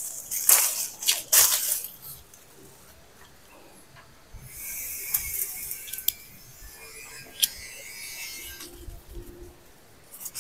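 Leafy branches of a fruit tree rustling as fruit is picked by hand, in bursts near the start and again from about four and a half seconds in, with a few sharp clicks among the leaves.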